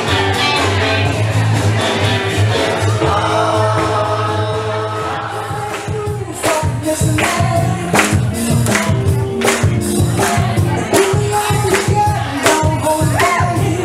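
Dance music playing loud. It opens with held notes over a steady bass; about six seconds in, a sharp, regular beat comes in.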